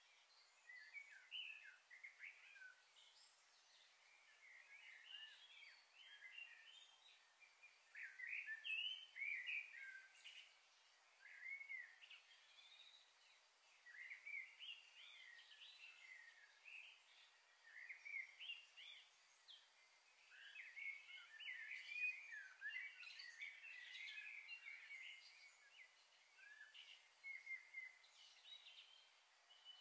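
Faint, continuous twittering of small birds: many short chirps throughout, over a steady high hiss.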